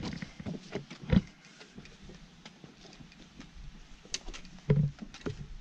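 Footsteps across a boulder field: irregular knocks and scrapes of boots on loose rock, with heavier thumps about a second in and near the end.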